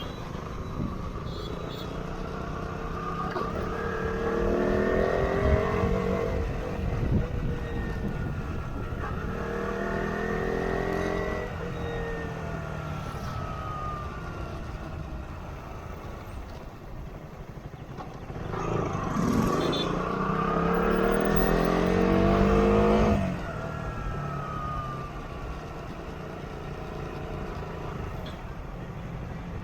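Motorcycle engine pulling through three spells of acceleration, its pitch rising as it revs up and falling back between them. The last and loudest pull cuts off suddenly. A steady low rumble of road and wind noise runs underneath.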